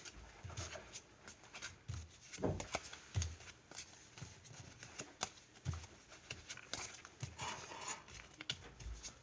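Faint handling of trading cards: scattered soft clicks and rustles as cards are flipped through, with a few low thumps.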